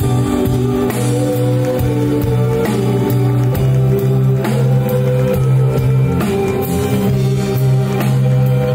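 Live pop band playing: long held keyboard chords over a sustained bass line, with electric guitars and a drum kit keeping time.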